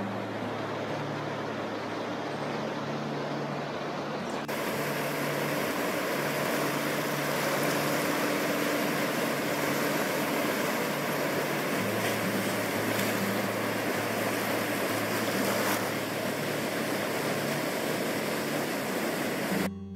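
Surf breaking and washing up a sandy beach as a steady rush of noise. It gets louder and brighter about four and a half seconds in.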